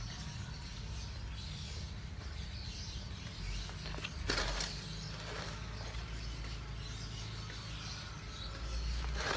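Steady low background rumble with faint hiss, broken by two brief rustles or clicks, one about four seconds in and one near the end.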